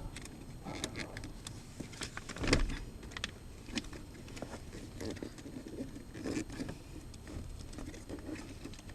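Scattered light clicks and knocks of metal handling, with one louder knock about two and a half seconds in: the positive cable terminal being fitted onto the post of a car's 12-volt auxiliary battery.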